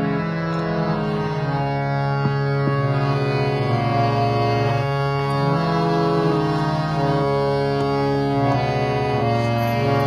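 Harmonium playing a slow melody in long held, reedy notes that change every second or two.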